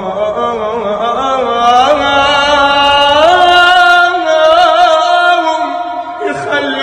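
A young man's solo voice singing a mawwal, drawing out long held notes with wavering melismatic ornaments. It is loudest in the middle and eases briefly near the end.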